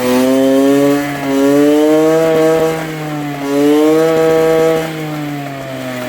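Minsk 125's single-cylinder two-stroke engine running and blipped up and down three times, settling back between revs.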